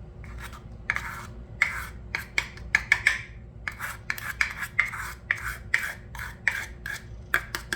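Batter being stirred in a mixing bowl in quick, repeated scraping strokes, about two to three a second, as protein powder is worked into beaten eggs and mashed banana and pear.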